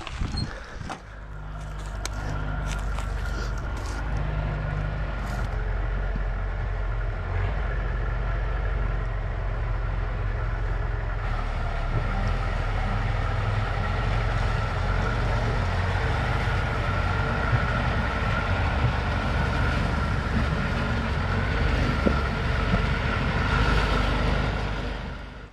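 Engine of a heavy vehicle running steadily, a deep drone with a steady higher whine above it, starting about a second in.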